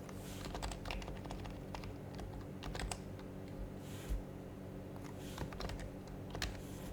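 Typing on an HHKB Professional HYBRID Type-S keyboard with silenced Topre capacitive switches, in irregular bursts of soft keystrokes separated by short pauses.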